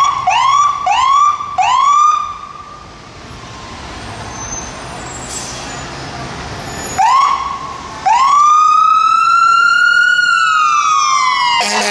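Fire engine siren on a 2017 Spartan Gladiator / Smeal pumper responding. A run of five quick rising yelps comes first, then a quieter stretch of engine and street noise. One more yelp comes about seven seconds in, then a long wail that rises and then falls. A horn blast cuts in right at the end.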